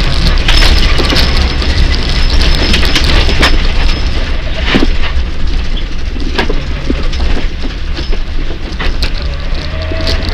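Rally car heard from inside the cabin on a gravel stage: a steady, heavy engine and drivetrain rumble under loud road noise, with repeated sharp knocks of stones and gravel striking the underbody.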